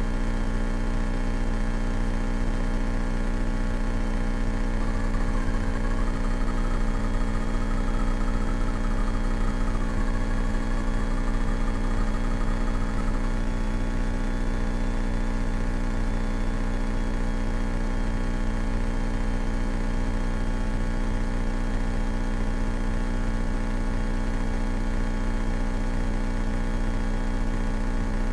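Steady drone of the 1970 Cessna 172K's four-cylinder Lycoming O-320 engine and propeller, heard from inside the cabin, holding a constant power setting.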